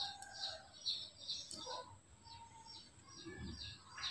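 Faint, quick bird chirping: a steady run of short high chirps, about three to four a second, with a thin steady high whine beneath.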